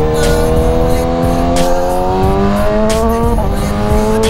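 BMW S1000RR inline-four motorcycle engine pulling up through the revs under acceleration. An upshift about three and a half seconds in drops the pitch, and it starts climbing again. Wind rushes over the microphone underneath.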